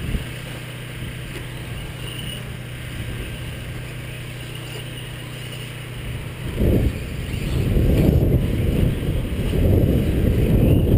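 A steady low hum, then from about six and a half seconds in an irregular rumble of wind buffeting the microphone that grows louder towards the end.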